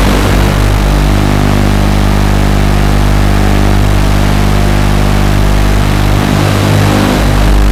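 Loud, steady electrical buzz with many even overtones over a hiss: interference carried on the audio of an analog FPV video link and recorded by the goggles' DVR.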